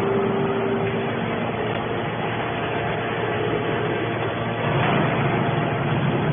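Hydraulic can baler running: a steady machine noise from its pump and motor, with a faint steady tone that stops about a second in.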